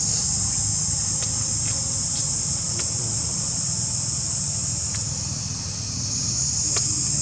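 A steady, high-pitched chorus of insects droning without a break. It eases off a little around two-thirds of the way through, then swells back. A low rumble runs underneath.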